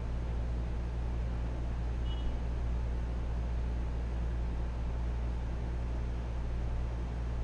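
Steady low hum with a constant hiss: room tone from the hall or the recording chain, with no one at the lectern. A faint short high tone sounds briefly about two seconds in.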